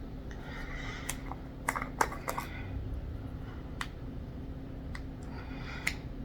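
Scattered light clicks and taps of small plastic cosmetic containers being handled and opened, over a steady low hum.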